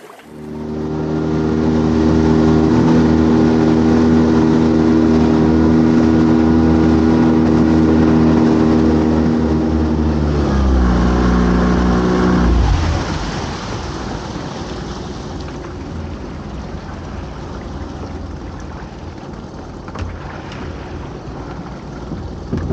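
Small boat's engine running steadily at a constant speed. About ten seconds in it is throttled back and its note falls and dies away, leaving a quieter steady rushing noise.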